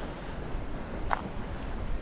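Wind buffeting the microphone over a steady rush of the sea, with one short high note about a second in.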